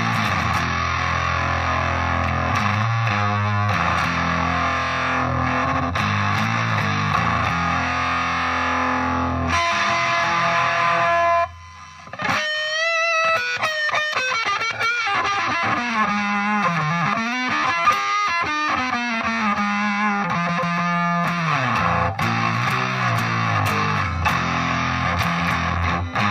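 Electric guitar, a Gibson SG '61 reissue on its neck pickup, played through a Zvex Fuzz Factory fuzz pedal into a Roland Cube 30 amp: a thick, heavily distorted fuzz tone. It drops out briefly about halfway through, then plays wavering, sliding notes with wide vibrato for several seconds before returning to dense fuzz chords and riffs.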